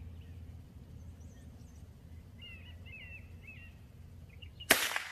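Birds chirping over a quiet rural background, then a single sharp .22 LR rifle shot from a Tikka T1x rimfire near the end, with a trailing echo.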